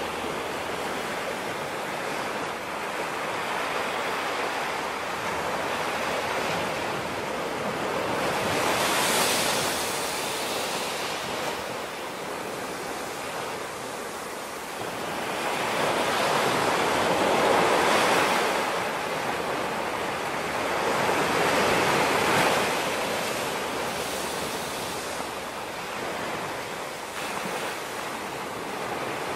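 Small waves washing up over a sandy beach among rocks: a steady hiss of surf that swells louder as bigger waves break, about a third of the way in and twice more past the middle.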